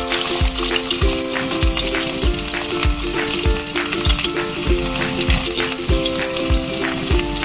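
Sliced garlic sizzling and crackling steadily in hot oil with mustard seeds in a metal pan.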